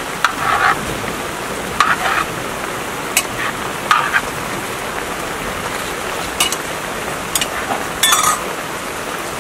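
Steady rain falling, with short clinks and knocks of a metal cooking pot and utensil being handled, about seven of them spread through, the loudest cluster near the end.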